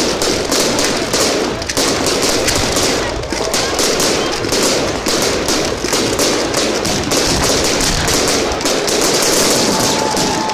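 Fireworks bursting overhead in quick succession: a dense, unbroken run of bangs and crackling, many reports a second.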